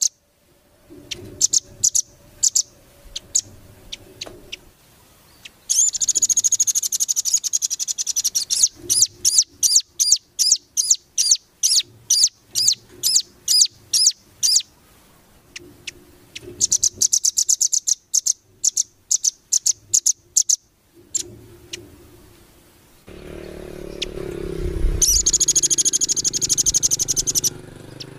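Small songbird singing rapid, high chattering runs of sharp notes. Dense fast trills alternate with slower strings of separate notes, two or three a second. Near the end a low rumble sits under a last dense burst.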